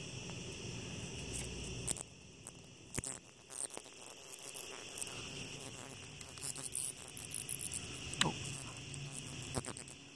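Crickets chirping steadily. From about two seconds in, irregular small clicks and rustles sound over them, with one short falling sweep near the end.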